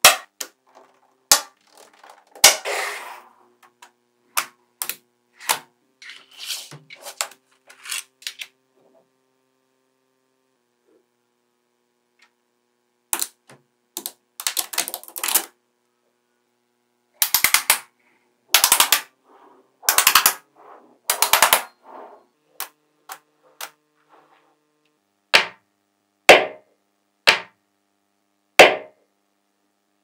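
Small neodymium magnetic balls snapping together: sharp single clicks and quick rattling runs of clicks, with a silent stretch of a few seconds about a third of the way in.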